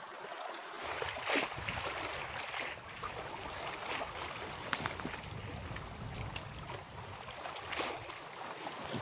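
Water splashing and sloshing close by, in irregular bursts, over a low wind rumble on the phone's microphone.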